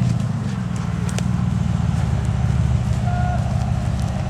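Off-road competition vehicle's engine running steadily at low revs, with a brief high tone about three seconds in.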